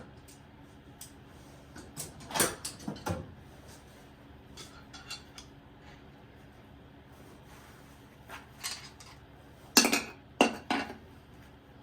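Hand tools and loose metal parts clinking and clanking against a Chevrolet 305 small-block V8 being taken apart: a cluster of sharp clanks about two seconds in, a few lighter taps, then another loud cluster near the end.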